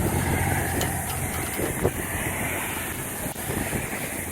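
Road traffic at an intersection: a vehicle's low rumble going by and fading away, with a few faint ticks.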